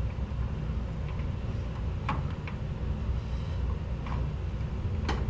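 Light clicks and knocks of garage door opener rail and belt parts being handled and fitted, four in all, over a steady low rumble.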